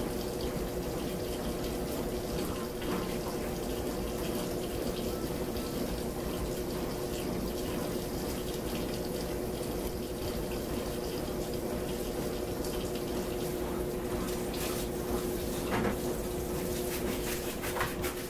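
Kitchen faucet running steadily into a stainless-steel sink, with a few sharp knocks from items handled at the sink near the end.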